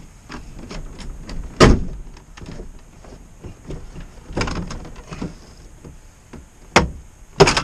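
Interior wall panel of a 1997 Ford E350 van being pulled and worked off: a series of knocks and sharp snaps, the loudest about a second and a half in and two more near the end.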